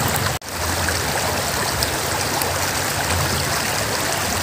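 Shallow river water running over rocks in a steady rush, briefly cutting out about half a second in.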